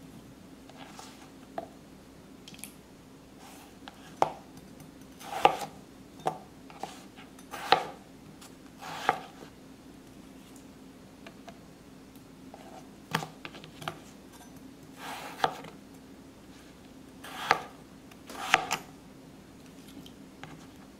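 Chef's knife cutting yellow potatoes into cubes on a plastic cutting board: irregular single knocks, a second or more apart, some with a short scrape as pieces are slid off the blade into a steel bowl of water.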